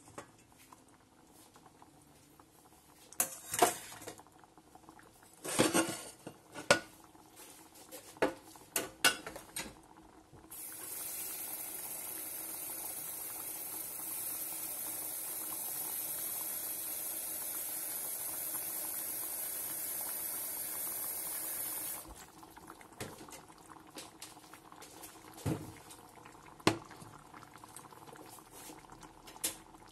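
Thick tomato and meat sauce with pasta simmering in a pan, bubbles bursting in irregular pops. About a third of the way in, a steady hiss starts suddenly, runs for about eleven seconds and cuts off abruptly.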